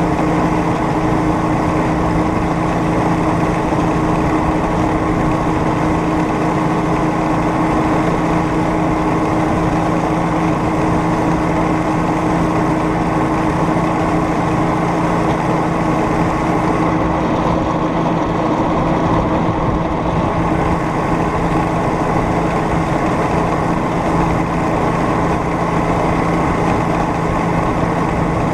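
Homemade rail speeder's small engine running at a steady speed as the cart rolls along the track, one even, unchanging engine note throughout.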